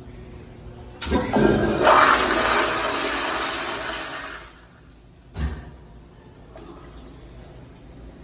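An American Standard restroom fixture flushing: a sudden rush of water that starts about a second in and fades out over about three and a half seconds. A single short knock follows about a second later.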